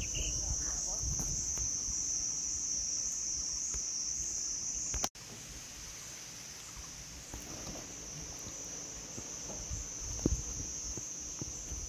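Insects buzzing in a steady, high-pitched chorus, with a low rumble underneath. The sound cuts out for an instant about five seconds in, then carries on a little quieter.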